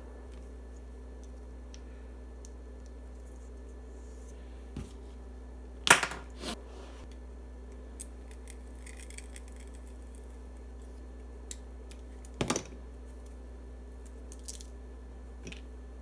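A few sharp clicks and knocks from handling a coax cable and a rotary coax stripping tool, the loudest about six seconds in and another near twelve seconds, with faint rustling between, over a steady low hum.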